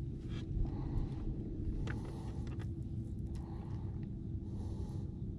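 Steady low hum of an electric trolling motor running at the bow, with a few faint ticks over it.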